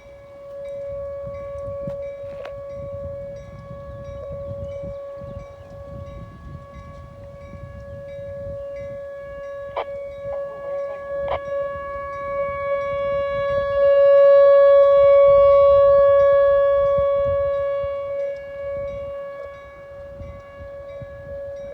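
Outdoor tornado warning siren sounding one steady tone. It swells to its loudest a little past the middle, then fades back, over a low rumble.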